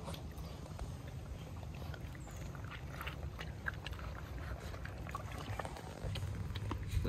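Several puppies crunching dry kibble from stainless steel bowls: irregular short crunches and clicks of food against the metal, over a steady low rumble.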